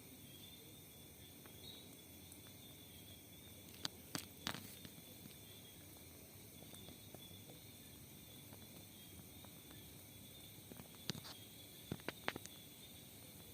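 Faint night ambience of insects such as crickets chirring steadily in a high pitch, broken by a few sharp clicks about four seconds in and again near the end.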